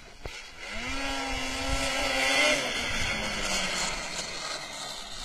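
Snowmobile engine running as the sled passes: it builds to its loudest, with a rushing hiss, about halfway, then its pitch falls and it fades as it moves away.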